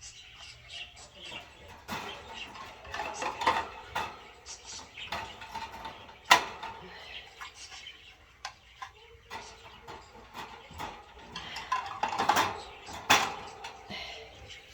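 Metal clinks and knocks of wire bird-cage parts being handled and fitted together, irregular, with the sharpest clank about six seconds in.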